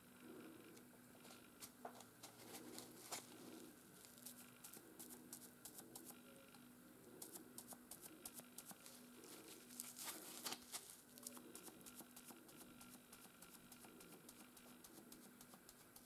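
Faint dabbing and scuffing of a foam paint sponge pressed again and again against the edge of a wooden board, with small handling clicks, a flurry of them about ten seconds in. A faint low hum pulses on and off underneath.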